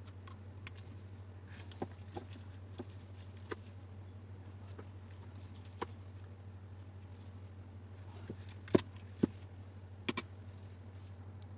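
Scattered light metal clicks and taps of a spanner and angle-grinder parts being handled while the nut on the new armature's shaft is tightened, with a few louder knocks near the end, over a steady low hum.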